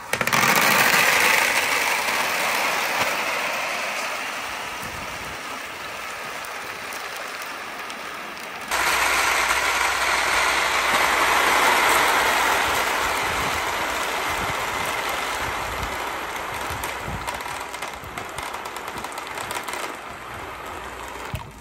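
Hundreds of glass marbles rolling together down a wooden-sided perforated-board slope: a dense, continuous rattling clatter that starts loud and slowly thins out. About nine seconds in it jumps abruptly louder, then thins out again.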